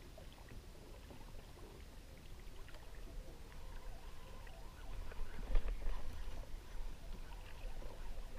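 Water lapping against a kayak's hull and outrigger floats, with a steady low rumble and a few faint ticks and knocks, louder about five and a half seconds in.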